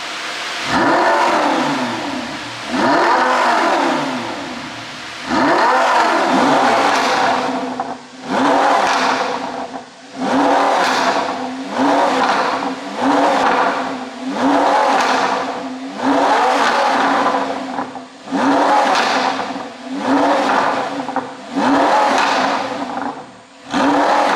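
Audi R8's 5.2-litre V10 engine, carrying a pops-and-crackles tune, free-revved about eleven times in a row. Each rev climbs sharply in pitch and drops back to idle, the first few held longer and the later ones quick blips about every two seconds.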